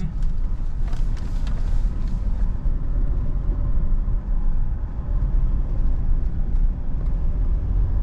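Moving car heard from inside the cabin: a steady low rumble of engine and tyres, with a few light rattles in the first couple of seconds.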